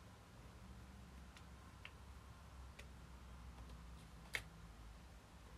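Near silence: faint room hum with a few soft ticks and one sharper click a little over four seconds in.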